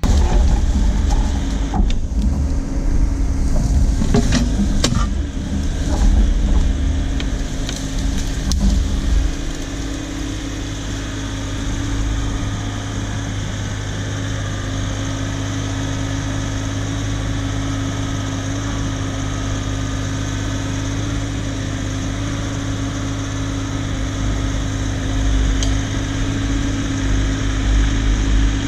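A motor vehicle's engine running steadily, with several clanks and knocks over the first nine seconds or so, then settling into an even run.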